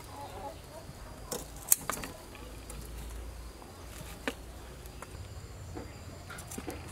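A few sharp clicks of metal tongs handling grilled beef ribs on a wooden board, over a faint, steady low background hum.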